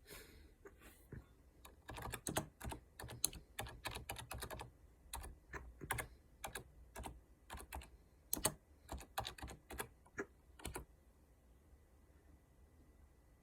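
Typing on a computer keyboard: a quick, irregular run of key clicks, a few a second, that stops about eleven seconds in. Someone is typing a reply into a chat.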